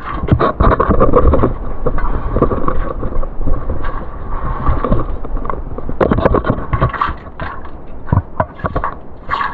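Scraping, rubbing and knocking as a caver crawls over wet cobbles and gravel in a tight passage, with heavy rubbing noise on the camera. The knocks come irregularly throughout.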